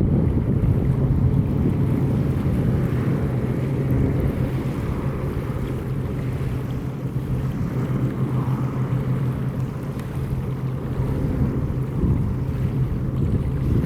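Firefighting water-skimmer aircraft engines running with a steady low hum, with wind rumbling on the microphone.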